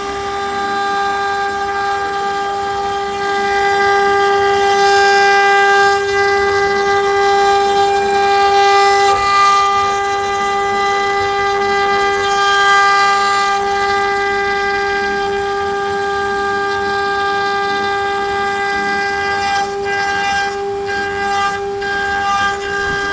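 CNC router spindle running with a steady high whine while the bit carves a wooden door, with a noisy cutting hiss underneath.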